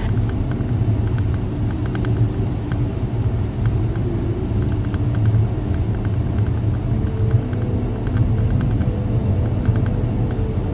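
Steady low rumble of road and engine noise inside a car cabin while driving at highway speed.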